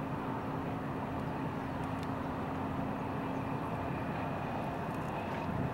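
Steady low rumble with a constant hum from a large naval training ship passing close by under way.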